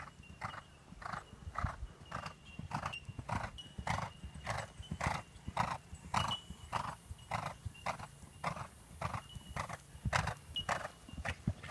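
Horses cantering on a sand arena: muffled hoofbeats with a regular puffing about twice a second in time with the stride, the horse blowing out with each canter stride.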